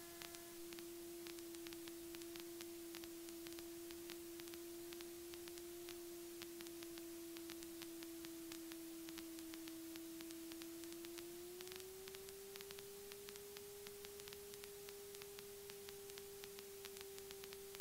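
Faint steady electrical whine in the light aircraft's intercom audio, a single tone that steps up slightly in pitch a little past halfway, with light static crackle underneath.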